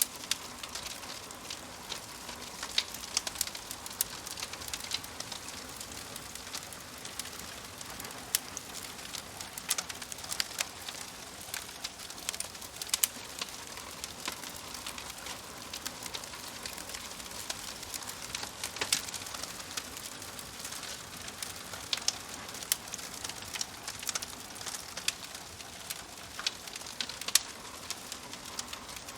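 Wood fire in a wood-burning stove crackling: a steady hiss with irregular sharp pops and snaps.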